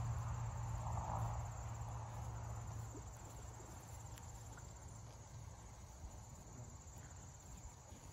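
Crickets chirping steadily as a high, even trill, with a low rumble fading away over the first few seconds.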